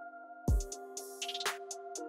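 Electronic background music: held synth chords, then a deep kick drum about half a second in, followed by a quick run of sharp hi-hat and snare hits.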